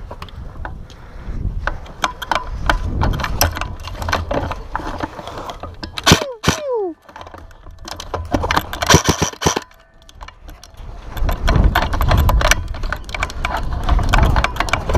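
Scattered sharp clicks and clatter, bunched into quick runs in places, with gusts of low rumble on the microphone; a short falling tone sounds about six seconds in.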